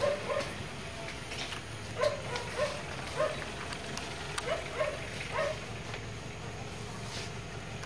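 A dog barking in short, repeated barks, often two in quick succession, stopping about two-thirds of the way in, over a steady low hum.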